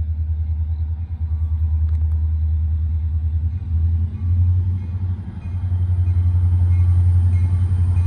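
Diesel locomotive engine rumbling low and pulsing, growing louder about halfway through as it notches up its throttle.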